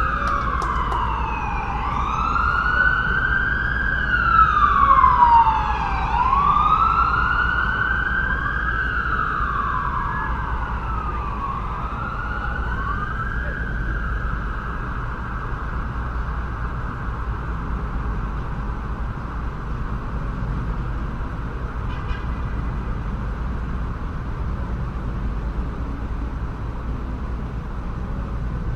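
Emergency vehicle siren wailing in slow rising and falling sweeps, a second siren overlapping it for a while, loudest a few seconds in and then fading out about halfway through. Steady city traffic rumble continues underneath and remains after the sirens are gone.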